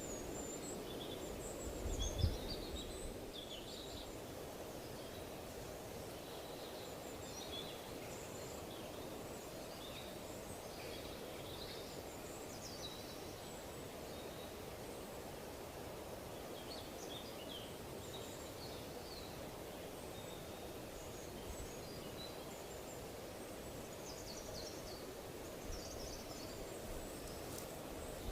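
Small birds chirping in scattered short calls over a steady rush of wind. A brief low rumble about two seconds in.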